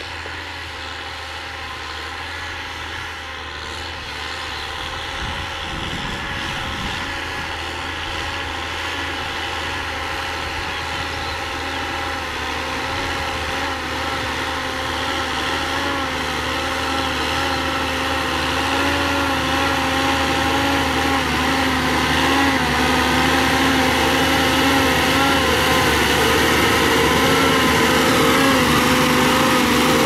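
John Deere farm tractor's diesel engine running steadily under load while it pulls a disc harrow through tilled soil, growing steadily louder as it comes closer.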